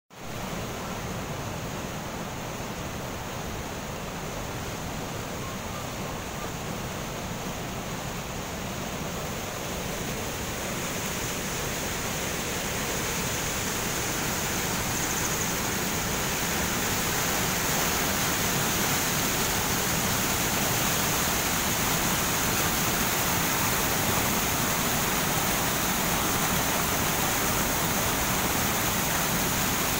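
Water rushing over a concrete canal spillway into churning whitewater: a steady rushing noise that grows louder through the first half and then holds.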